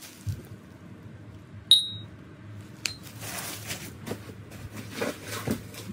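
Ceramic dishware clinking twice, a sharp knock with a brief high ring about two seconds in and a lighter one a second later, followed by plastic bubble wrap crinkling and rustling as the dishes are unwrapped.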